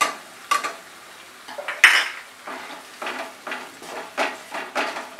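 Wooden spatula stirring and scraping a wet spice paste in a nonstick kadai. A louder knock comes about two seconds in, then quick, even strokes about three a second.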